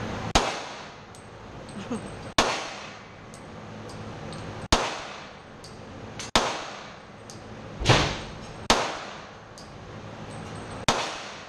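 .40 caliber handgun fired seven times at an irregular pace, one to two seconds between shots. Each report is sharp and echoes off the walls of an indoor range.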